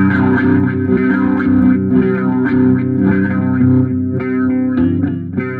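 Instrumental music: an effects-laden guitar with held, sustained notes over a steady low bass, entering fully at the start.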